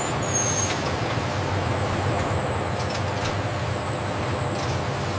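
Steady drone of industrial machinery with a low hum and a broad rushing noise, starting abruptly at a cut.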